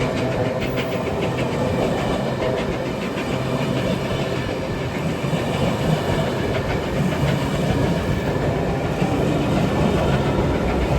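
Steam-hauled passenger train running past, its wheels rumbling and clattering steadily over the rails.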